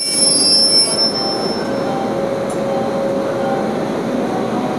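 WAP-7 electric locomotive pulling out slowly, with a steady hum and rumble. A thin, high wheel squeal fades out over the first second or so.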